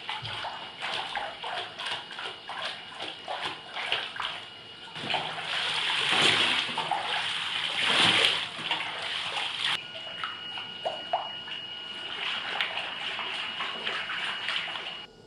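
Bathwater splashing and sloshing in a tub as a dog is washed, with a louder stretch of pouring or gushing water in the middle. A faint steady high tone runs underneath.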